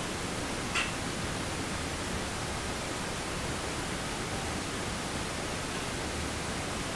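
Steady hiss, with one brief, faint high-pitched sound a little under a second in.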